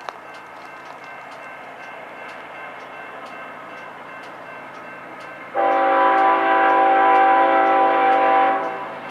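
Approaching BNSF locomotive, with its steady rumble far off. About five and a half seconds in, its air horn sounds one long blast of several notes at once, lasting about three seconds, then stops.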